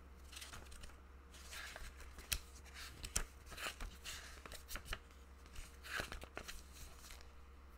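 Pages of a small paperback guidebook being flipped through by hand: a run of faint paper rustles and swishes with light ticks, over a steady low hum.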